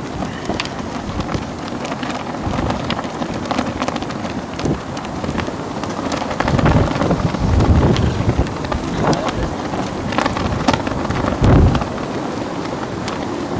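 Strong gusty wind of a snow squall buffeting the microphone in low rumbling swells, loudest about halfway through and again late on, with scattered sharp ticks throughout.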